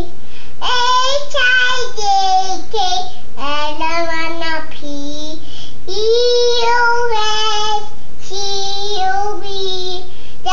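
A toddler girl singing in a high voice, in phrases of held notes with short breaks between them.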